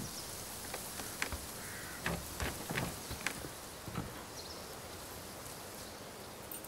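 A hand working a door handle at a closed door: a handful of light, irregular clicks and knocks over the first four seconds, over faint outdoor ambience.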